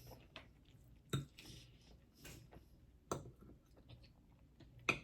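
A person chewing food, with soft wet mouth sounds and a few sharp clicks about every two seconds.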